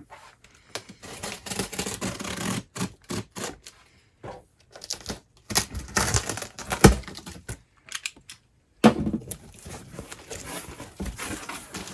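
Box cutter slitting the packing tape along a sealed cardboard box, the dull blade scraping and catching in uneven clicks and short rasps as the tape and cardboard tear open. The sounds drop out briefly a little before nine seconds in.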